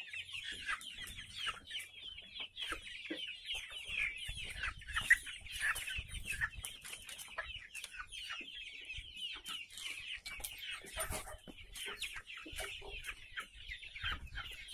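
A flock of young kampung chickens peeping and clucking all at once, many short, high, falling calls overlapping, as hungry birds wait to be fed. A sharp knock stands out about five seconds in.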